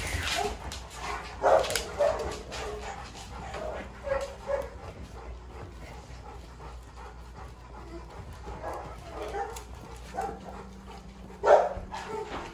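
Puppies yipping and whimpering in short, scattered calls as they crowd around an adult dog. There are louder yelps about a second and a half in, and again near the end.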